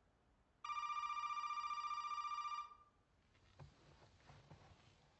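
Telephone ringing once: a single electronic ring of about two seconds with a fast warble, starting just under a second in. Faint rustles and clicks follow.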